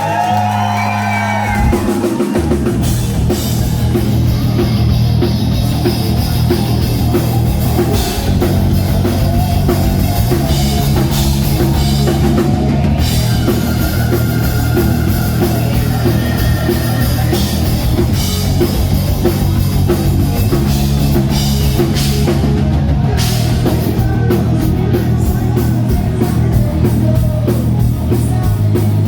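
Live hard rock band playing loudly, with drums, electric guitars and bass. The full band comes in about two seconds in.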